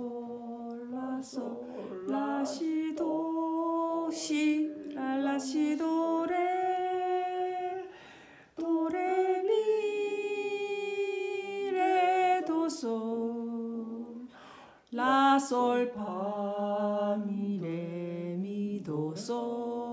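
A single unaccompanied voice sings a slow melody phrase by phrase in solfège note names, holding long notes between pitch changes, with short breaks about eight and fifteen seconds in.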